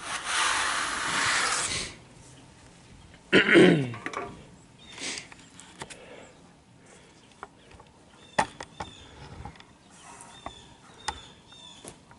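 Brush sweeping sawdust off a freshly sawn walnut slab for about two seconds. About three and a half seconds in comes a short vocal sound falling in pitch, and after it a few light knocks.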